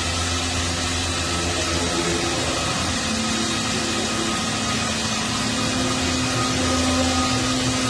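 CNC wood router running, its spindle and bit cutting wood: a steady hiss with a machine hum that shifts a little in pitch about three seconds in.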